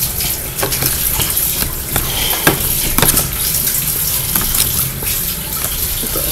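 A spoon stirring sticky glue slime in a bowl, giving irregular wet clicks and squelches over a steady hiss. The glue and activator are still being mixed and the slime is still sticky.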